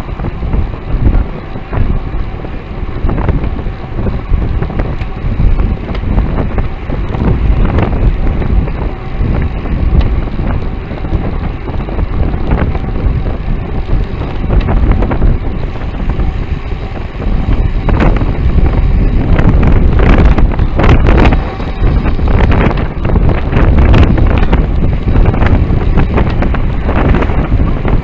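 Heavy wind buffeting and road rumble on a bicycle-mounted camera's microphone while riding in a group on the road. A run of sharp clicks and rattles comes about two-thirds of the way through.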